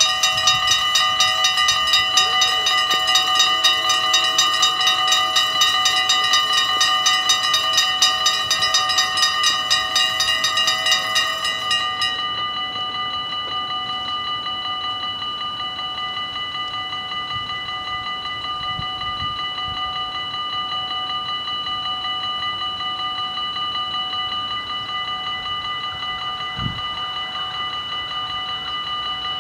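The electric bells of a Dutch AHOB level crossing ringing fast and continuously as the crossing closes. About twelve seconds in, as the barriers finish coming down, the ringing drops to a quieter, duller tone and carries on.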